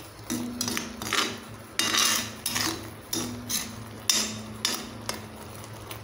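Metal spatula scraping and stirring thick, wet beetroot halwa around a heavy iron kadai over a high flame, with a scraping stroke about every two-thirds of a second. A low steady hum runs underneath.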